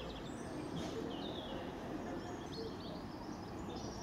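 Small birds singing, with short chirping phrases that come and go, over a steady low background noise.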